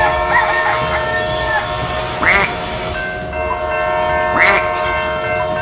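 A long, steady horn-like tone made of several notes held together, with two short squeaky chirps about two and four and a half seconds in.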